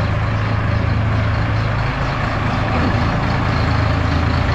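Tractor towing a trailer, its engine running steadily.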